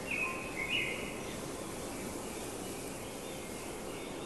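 A bird singing a few short, clear whistled notes in the first second, over a steady outdoor background hiss.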